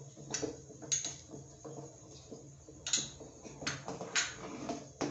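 A handful of short, sharp clicks and light knocks of a metal spoon against bowls and a steel cooking pot, spaced irregularly, over a faint steady low hum.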